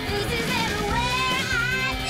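Rock song sung by a high female voice over electric guitar, bass and drums.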